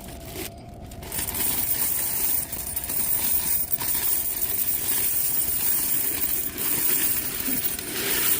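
Coins clattering and jingling continuously as a vending machine's coin box is emptied.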